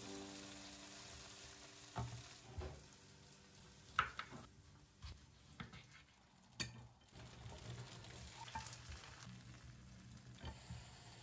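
Vegetables frying in a pan with a faint sizzle while a wooden spoon stirs and scoops them, with a few sharp clacks of utensils against the pan and cutting board, the loudest about four seconds in.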